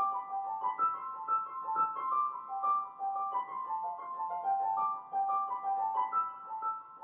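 Piano music: a flowing run of broken-chord notes, about four notes a second, repeating a steady pattern.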